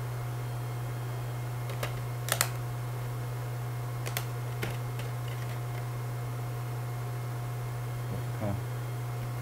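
A DVD case and disc being handled, with a few sharp plastic clicks; a close double click about two and a half seconds in is the loudest. A steady low electrical hum runs underneath.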